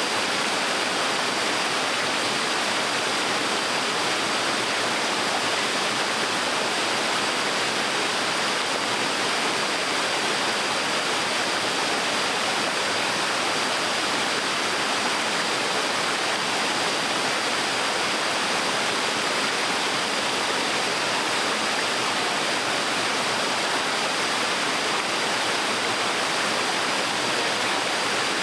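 Small waterfall on a stream, water falling and rushing steadily.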